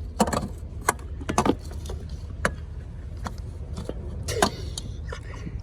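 Light metallic clinks and knocks, about a dozen, irregularly spaced, as tools and parts are handled under a car while the new oil filter is fitted. A steady low hum runs underneath.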